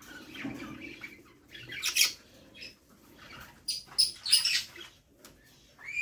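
Budgerigar chicks squeaking and chirping as they beg while the mother budgie feeds them, with soft shuffling in the nest box. The sharpest squeaks come about two seconds in and in a quick cluster around four seconds in.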